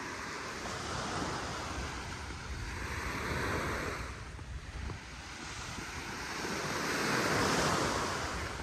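Gulf of Mexico surf washing up on the beach, swelling louder twice, about three seconds in and again near the end, with wind rumbling on the microphone.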